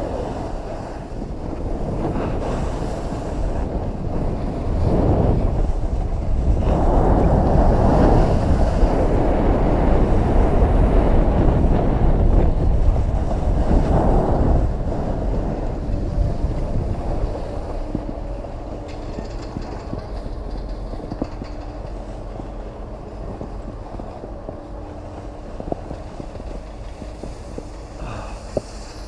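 Skis sliding and scraping over packed piste snow, with wind rushing past the microphone. It is a steady rushing noise that is loudest in the middle and dies down over the last dozen seconds as the skier slows on the flat.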